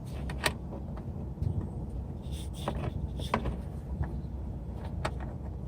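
Scattered clicks, knocks and scraping of a plastic fog light housing being worked into the bumper opening, over a steady low rumble.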